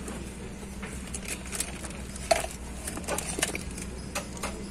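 Plastic packaging crinkling and rustling as parts are handled, with irregular small clicks and one sharper knock about two and a half seconds in, over a steady low hum.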